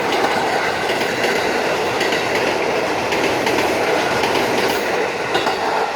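Electric commuter train (EMU) running past close by: a steady rumble of the train in motion, with occasional sharp clicks from the wheels on the rails.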